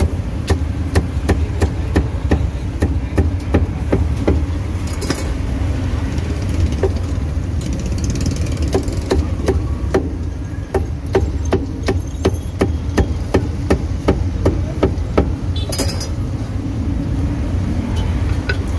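Cleaver chopping roast meat on a wooden chopping block: sharp, regular strikes about two or three a second, sparser for a few seconds in the middle. A steady low rumble of road traffic runs underneath.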